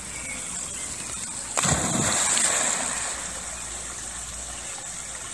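A dog leaps into a pond with a loud splash about a second and a half in, then water splashes around it as it swims, fading gradually.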